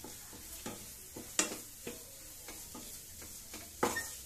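Wooden spatula stirring and scraping paneer bhurji around a non-stick kadai, with a light sizzle of frying underneath. Short clacks of the spatula on the pan come throughout, sharpest about a second and a half in and near the end.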